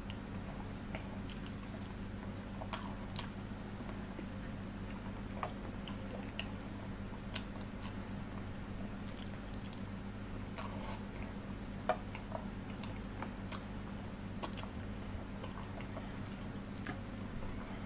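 Close-miked chewing and biting on curried chicken feet with rice: scattered wet mouth clicks and smacks, one sharper click about twelve seconds in, over a steady low hum.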